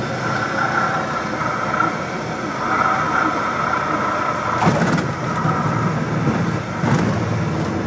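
Small single-engine propeller plane's engine idling and cabin noise, heard inside the cockpit on the landing rollout, with a steady whine. Two sharp knocks come about halfway through and near the end.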